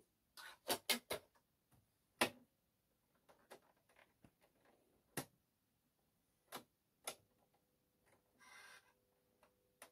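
Scattered light plastic clicks and knocks from a disc being set into the Philips AZ1310 boombox's top-loading CD compartment and its lid being pressed shut. A brief faint whirr comes near the end, followed by a faint steady hum, as the CD drive starts.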